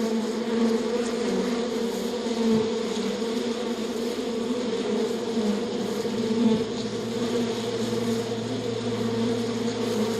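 A flying insect of the bee and wasp kind buzzing steadily on the wing, an even, unbroken buzz. About two-thirds of the way through, a second, lower steady hum joins it.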